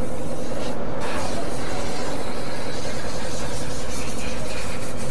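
Motorcycle under way, its engine running steadily beneath a constant rush of wind and road noise.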